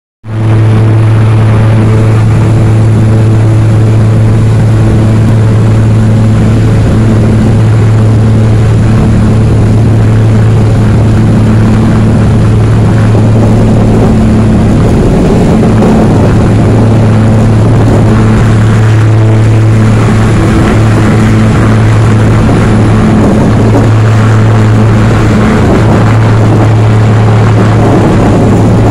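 A small plane's engines at takeoff power, heard from inside the cabin: a loud, steady drone with a strong deep hum, through the takeoff roll and lift-off.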